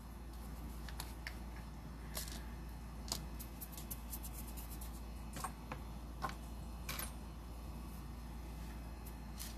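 A small powder jar being handled, unscrewed and set down on a table: scattered light clicks and taps of the lid and jar, with a short cluster of clicks around three to four seconds in.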